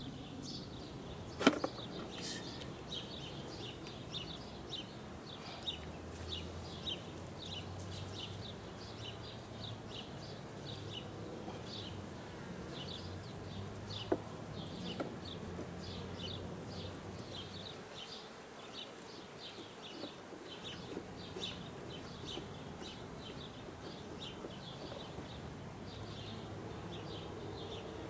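Honey bees buzzing around an open hive. Over it, a high chirp repeats about twice a second, and there are two sharp knocks, one about a second and a half in and one about fourteen seconds in.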